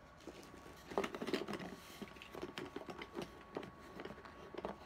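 Hands rummaging for and gathering small clear plastic snap-cap containers: irregular clicks, taps and rustling, busiest about a second in.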